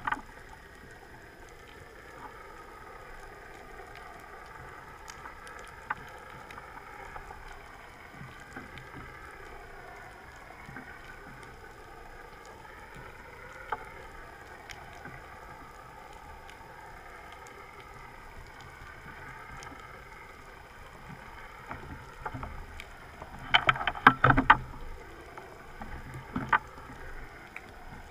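Underwater recording of a boat motor's steady hum whose pitch wavers slowly up and down. A cluster of loud knocks and clatter comes near the end.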